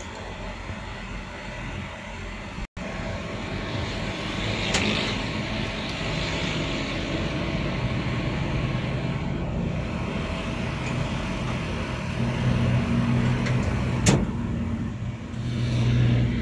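Steady vehicle engine noise in the background, its low hum shifting in pitch, with one sharp click about fourteen seconds in.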